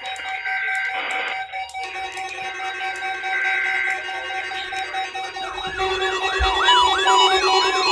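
Several NOAA weather alert radios sounding their alarms together, set off by the weather service's weekly test signal: overlapping steady beeping alarm tones, joined about five seconds in by a wailing siren that rises and falls about two and a half times a second.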